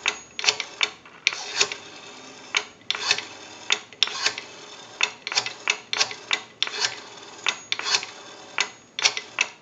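Rotary dial of a Western Electric 233G payphone dialing out a number: each digit is a quick wind of the dial followed by a run of sharp clicks as it returns, repeated digit after digit.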